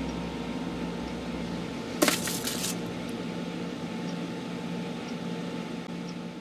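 A steady hum and hiss, with one short crash about two seconds in that lasts under a second.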